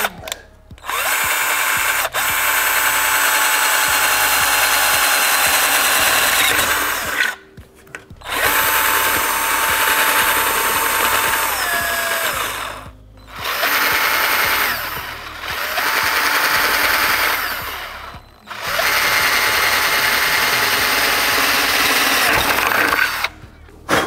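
Hippoo cordless drill boring a 5/16-inch hole through the edge of a door with a styrofoam core, run in five bursts with short pauses between them. Its steady whine sags in pitch now and then as the bit bites.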